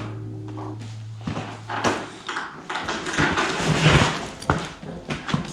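Knocks, clunks and scraping from a steel tool cart and its gear being handled: several sharp knocks with a stretch of scraping and rattling between them. A steady low hum fades out early.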